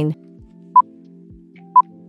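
Countdown timer beeping: two short, single-pitched beeps a second apart, over quiet background music.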